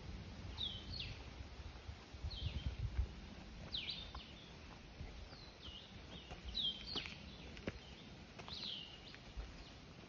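A bird calling over and over: short notes that slide down in pitch, about one a second. A low rumble runs under the first few seconds, and there are a few faint clicks.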